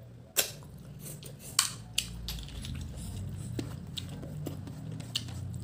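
Close-up eating sounds: chewing a mouthful of rice and cooked snails, with a few sharp mouth smacks or clicks.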